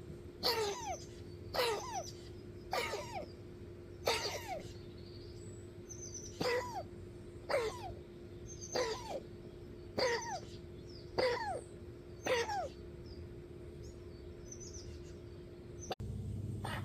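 An animal wheezing: with each breath, a squeaky sound that drops sharply in pitch, repeated about once a second, then stopping about two-thirds of the way through. A steady low hum runs underneath.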